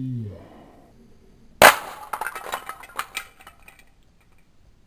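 Lego brick model hitting a concrete floor and breaking apart: one sharp crack about a second and a half in, then about two seconds of small plastic clicks and clatters as the loose bricks bounce and scatter.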